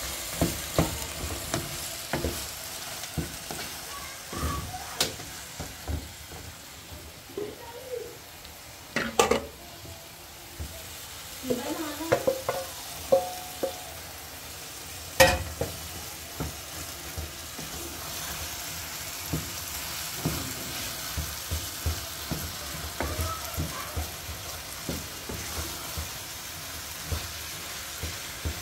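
Chicken in tomato paste sizzling in a frying pan while a wooden spatula stirs it, scraping and knocking against the pan. Two louder clanks stand out, about a third of the way in and just past halfway.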